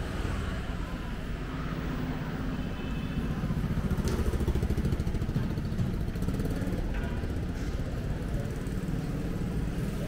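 Street traffic made up largely of motorbike engines running past, loudest around the middle as one comes close.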